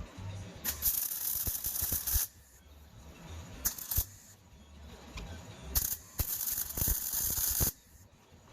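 Three bursts of loud hissing: the first about a second and a half long, a short one in the middle, and a longer one of about two seconds near the end.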